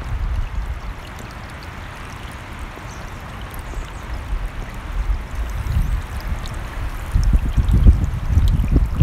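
Running mountain stream rushing steadily, with low gusts of wind buffeting the microphone that grow stronger near the end.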